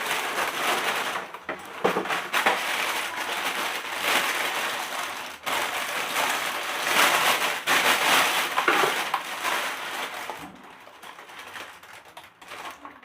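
Packaging being handled as a cycling helmet is unpacked from its box: dense crinkling and rustling that goes on for about ten seconds, then drops to quieter handling near the end.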